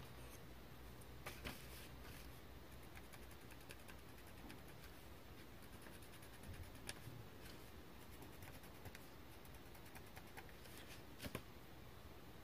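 Faint cross-stitching sounds: a needle and embroidery floss drawn through black 14-count fabric, soft rustling with small ticks and a couple of sharper clicks about a second and a half in and again near the end.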